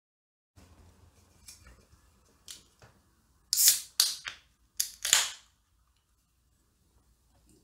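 Beer can being cracked open: four sharp hisses of escaping gas in quick succession as the tab is worked, after some faint rustling and handling.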